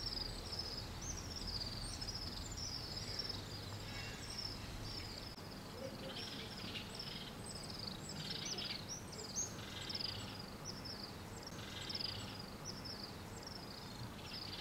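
Small birds chirping outdoors: a quick run of short, high, falling chirps, several a second, then more scattered calls from about six seconds in, over a faint low background rumble.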